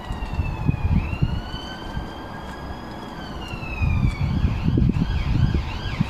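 A siren wailing in slow rising and falling sweeps, switching to quicker yelps about four seconds in, with gusts of wind rumbling on the microphone.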